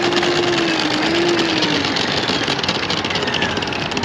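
Milwaukee M18 FUEL battery drain snake running, its motor spinning the drum and cable with a steady whine over a dense rattle. The whine wavers about a second in and dies away near the halfway point while the rattle goes on.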